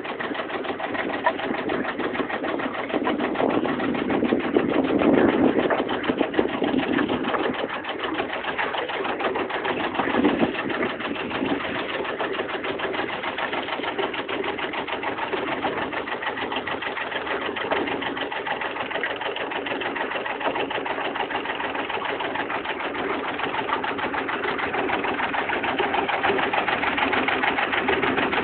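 Boat engine running steadily with a fast, even beat, a little louder about four to seven seconds in.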